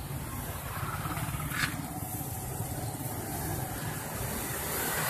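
Road traffic going by: a steady engine rumble from passing vehicles, with one sharp click about a second and a half in.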